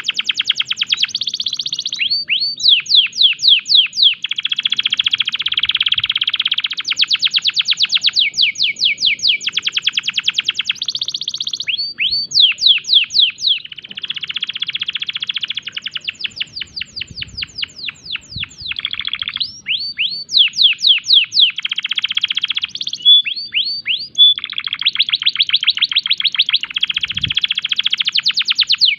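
Domestic canary singing a long unbroken song in breeding condition: fast buzzy rolls alternating with runs of quick, clear down-slurred notes, each phrase lasting a second or two before the next begins.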